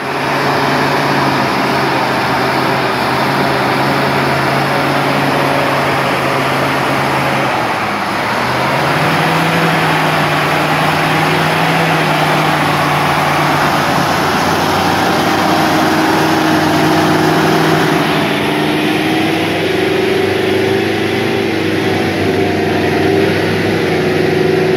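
Oshkosh heavy military truck's diesel engine running under load as it crawls through mud. Its pitch dips about a third of the way in and then climbs back higher, and a higher whine joins about halfway through.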